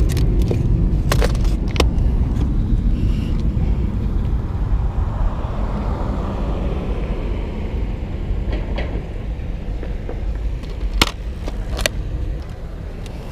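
Road traffic rumble from cars passing on the street, swelling in the middle and slowly easing off. Near the end come two sharp plastic clicks as the tackle box's latches are snapped shut.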